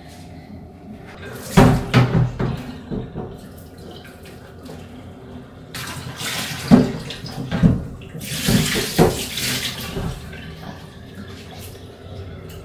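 Water running from a kitchen tap into a stainless steel sink as parboiled rice is rinsed and drained in a pot. It comes in a couple of stretches, with a few knocks of the pot against the sink.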